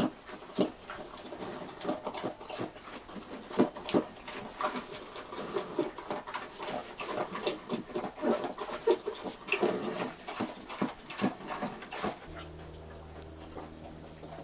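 Young piglets grunting and snuffling in wood-shaving bedding: many short, irregular grunts and rustles over a steady high chirring of insects. About twelve seconds in, the grunts stop and a steady low hum takes over.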